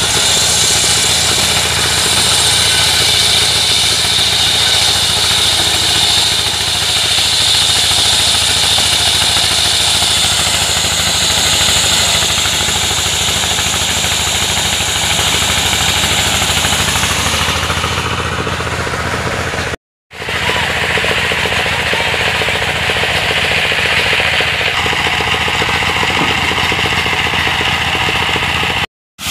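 Engine-driven circular sawmill running steadily: a loud low engine drone under the saw blade's high whine, which shifts in pitch as it works through the wood. The sound cuts out abruptly for a moment twice, about twenty seconds in and just before the end.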